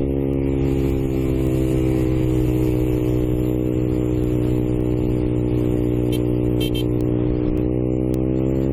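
Motorcycle engine running under way, with wind and road noise: the engine note eases slightly, holds steady, then rises near the end as the bike speeds up.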